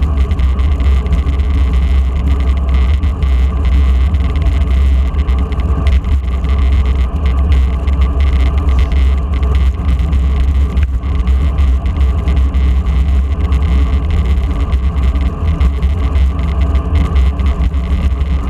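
Steady rumble of wind buffeting the microphone of an action camera on a moving road bike, with an even hiss above it.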